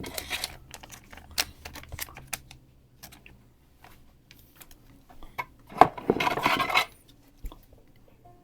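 Pokémon trading cards and booster-pack wrappers being handled: scattered small clicks and taps, with a louder rustle lasting about a second about two-thirds of the way in.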